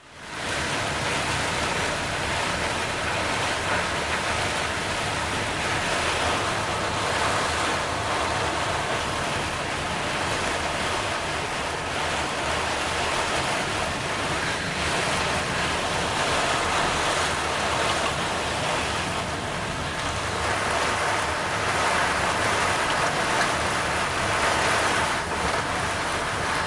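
Heavy rain and strong wind at sea: a steady, dense rushing of rain and waves, swelling and easing a little now and then.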